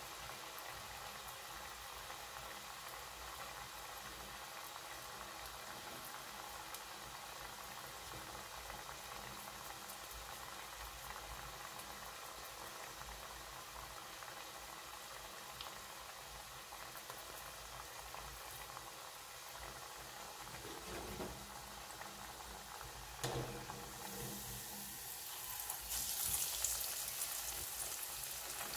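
Chana dal fritters (parippu vada) bubbling and sizzling steadily in hot coconut oil in a wok. A couple of knocks come about three-quarters of the way through, then the sizzling grows louder near the end.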